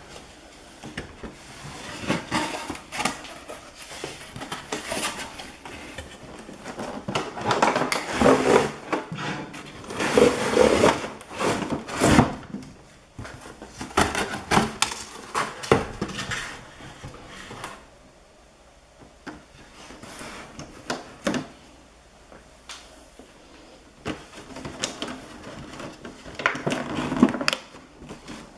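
Cardboard toy box with a clear plastic window being handled and shifted about: irregular rustling, tapping and knocks, quieter for several seconds past the middle.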